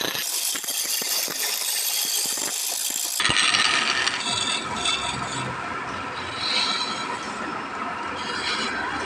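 Wood lathe spinning a wooden baluster while a hand-held chisel cuts into it: a rough scraping hiss with rapid rattling clicks. About three seconds in the sound changes abruptly and becomes steadier, with a low hum under the cutting.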